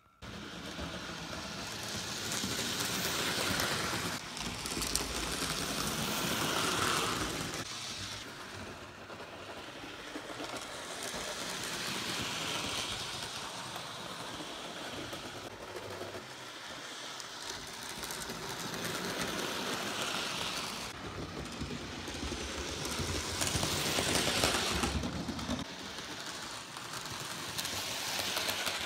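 OO-scale model train running on layout track: a steady rattling rush of wheels on rail and motor, swelling and fading several times as the train passes close by.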